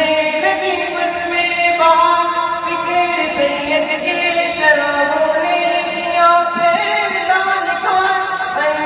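A man singing a slow, melodic Urdu verse into a microphone, holding long notes and gliding between them.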